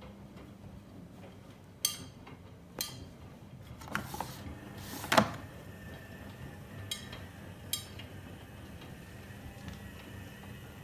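A series of sharp clicks and knocks, about six in all, the loudest about five seconds in with a short rushing sound, over a faint steady hum.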